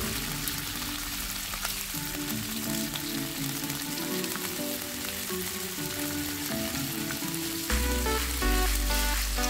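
Pork belly and garlic sizzling in a frying pan, with a few sharp clicks as kitchen scissors cut the meat. Soft background music plays underneath and grows louder near the end.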